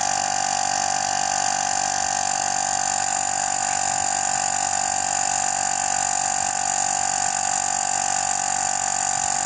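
Black Cat 12 V DC mini air compressor (tyre inflator) running steadily with a constant high-pitched whine, pumping air into a punctured car tyre partway through inflation, with the pressure rising toward the 39 PSI it is set to cut off at.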